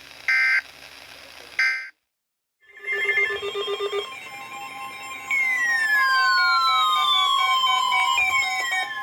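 The end of an Emergency Alert System message: two short bursts of the SAME end-of-message data tones, a second apart, then a brief dead gap. After that an electronic alert sound starts: a quick pulsing beep, then a long falling whistle-like tone that slides down twice over a steady tone.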